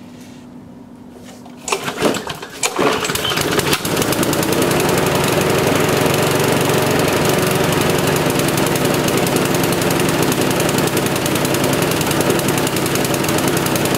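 Briggs & Stratton 35 Classic lawnmower engine pull-started about two seconds in, catching within a second and then running steadily. It is still not running right with a fresh spark plug, which the owner is about 90% sure is the carburettor diaphragm and gasket.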